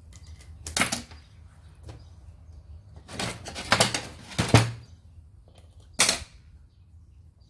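Metal hand tools knocking and scraping against a submersible pump's metal cover while the power cord is being taken off: one sharp clank about a second in, a quick run of knocks and scraping in the middle, and one more clank near the end.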